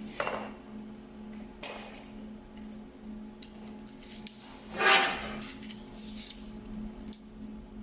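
Metal pieces clinking and knocking as they are handled, with a longer scraping noise about five seconds in, over a steady low hum.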